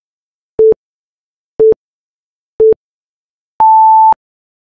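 Electronic countdown-timer beeps: three short beeps about a second apart, then one longer, higher beep as the count reaches zero, signalling that time is up.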